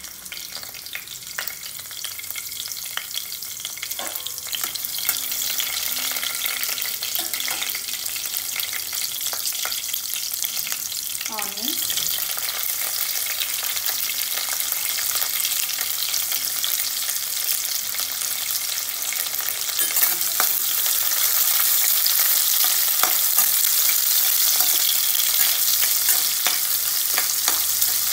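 Green chillies and sliced onions frying in hot oil in a kadai: a steady sizzle that grows louder, with a step up about two-thirds of the way through. Occasional light clicks sound over it.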